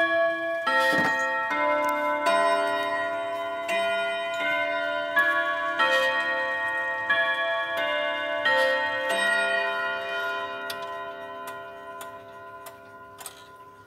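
FIAG double-ring pendulum wall clock striking a chime melody: a run of ringing struck notes, a new one about every 0.7 s, each left to ring into the next. They fade out about eleven seconds in, and a few sharp clicks follow.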